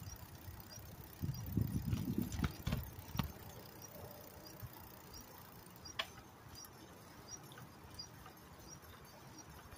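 Riding a bicycle: wind buffeting the microphone in low rumbling gusts for a couple of seconds, with a few sharp clicks and knocks from the bike over the road, the loudest about six seconds in. A faint, even ticking about twice a second runs underneath.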